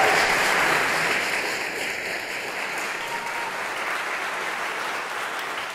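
Concert audience applauding, the clapping slowly thinning and growing quieter.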